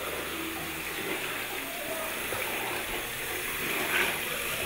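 Tap water running steadily into a washbasin as someone washes at it.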